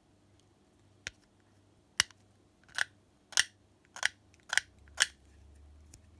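A blade shaving plastic off the back of a control knob: a couple of sharp clicks, then five short scraping cuts about two a second, smoothing the edge where the lug was.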